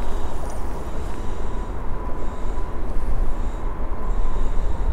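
Wind buffeting the microphone outdoors, a steady low rumble that rises and falls slightly.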